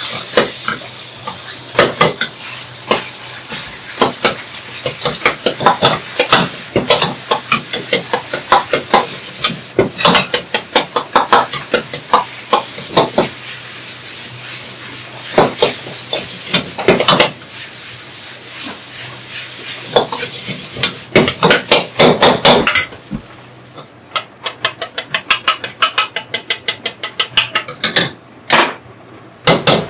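Metal ladle clanking and scraping against a wok as fried rice is stir-fried, with the food sizzling. Later on the ladle strikes the wok rapidly, several times a second.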